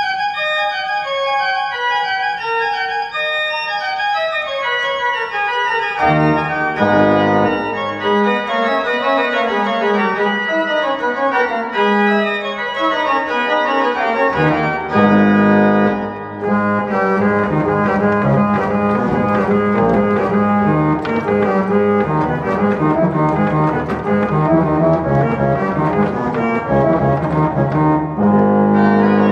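Arp Schnitger's 1699 pipe organ played, restored to sound as it did after its 1760 enlargement. A quick run of notes steps downward, lower voices come in about six seconds in, and from about halfway the music fills out into full chords over a steady bass.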